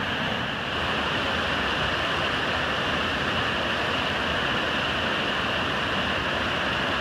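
Steady rush of a mountain creek pouring over granite ledges in a series of small waterfalls.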